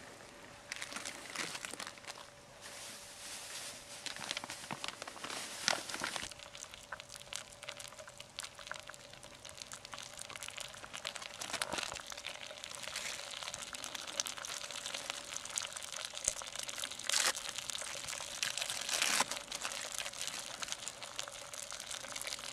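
Eggs frying in a pan on a camping stove: a steady crackling sizzle, with a few brief louder sounds along the way.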